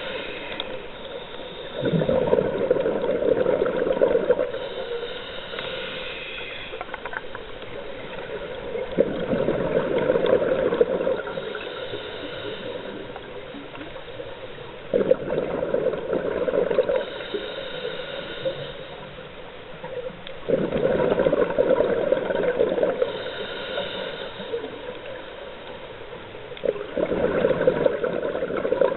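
Scuba diver breathing through a regulator underwater: five bursts of exhaled bubbles, about every six seconds, each followed a little later by a shorter, hissing inhale through the regulator.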